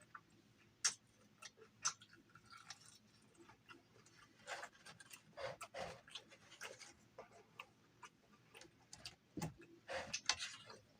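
Close-up mouth sounds of eating: chewing and lip smacks, scattered clicks with busier stretches about four to six seconds in and again near the end.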